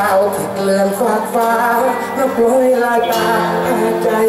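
Music playing: a song with a singing voice over instrumental backing.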